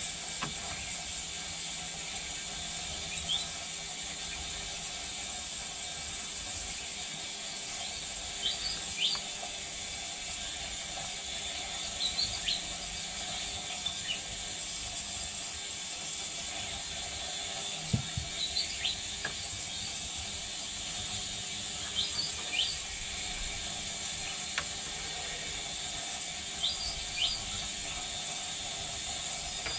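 Ultrasonic cleaner warming up: a steady hum with a high whine running under everything. Short high chirps come every few seconds, and there is one dull knock about 18 seconds in.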